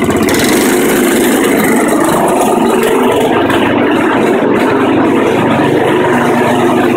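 Small single-cylinder lawnmower engine with a cast-iron cylinder liner running steadily at raised revs, turning a belt-driven alternator as a 12 V generator that has no load on it yet.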